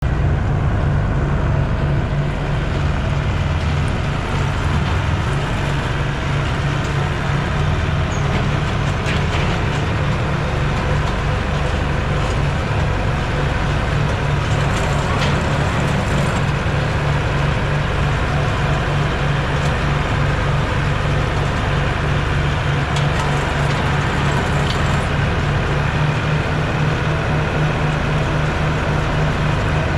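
Farm machinery engine running steadily at a constant speed, with a few faint clicks.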